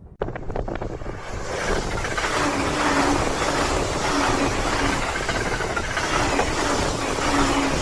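JR Freight EF210 electric locomotive and its freight wagons passing close at speed: a loud rush of wheel-on-rail noise that starts abruptly, builds over the first second or two and then holds steady, with a few sharp clicks at the start and a low hum that comes and goes.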